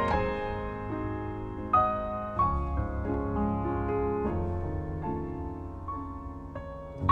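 Background piano music: slow notes and chords struck about every second, each ringing and fading before the next.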